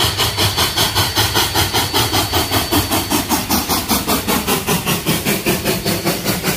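Cumbres & Toltec No. 487, a K-36 narrow-gauge steam locomotive, pulling a passenger train close by. Its exhaust chuffs in a rapid, steady beat of about seven a second.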